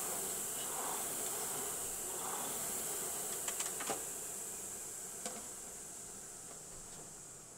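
Air-resistance flywheel fan of a Concept2 rowing machine whirring, swelling with each pull for the last few strokes. A few sharp clicks come about three and a half seconds in as the rowing stops, then the fan's whir fades steadily as the flywheel spins down.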